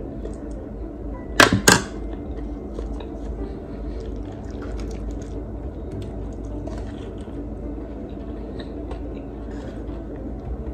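A metal spoon clinks twice on a ceramic plate about a second and a half in. Soft chewing and small clicks of eating follow.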